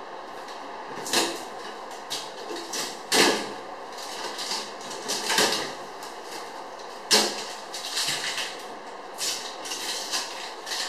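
Irregular knocks and scraping rustles from a new refrigerator and its packaging being handled by hand, with four sharper knocks standing out among them.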